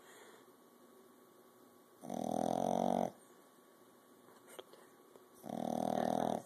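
Sleeping puppy snoring: two long, pitched snores, each about a second, the first about two seconds in and the second near the end.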